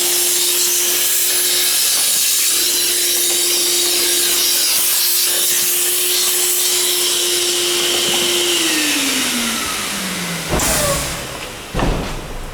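High-speed spindle motor of an MLA A40/A45 copy router running with a steady high whine and hiss, then switched off about two-thirds of the way in and winding down, its pitch falling. Two loud clunks follow about a second apart near the end.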